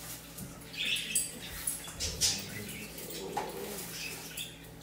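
Metal ice cream scoop scraping vanilla ice cream out of a cardboard carton, with light knocks and a few short squeaks.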